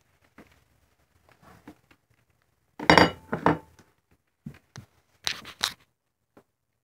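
A food dish handled on a hard floor: a loud clink and clatter about three seconds in, a few lighter knocks, then sharper clicks a little past five seconds, as two cats crowd in to eat.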